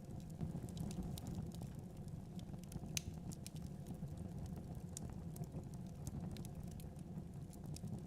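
Wood fire of burning logs in a fireplace crackling, with irregular sharp pops over a steady low rumble; one pop about three seconds in is the loudest.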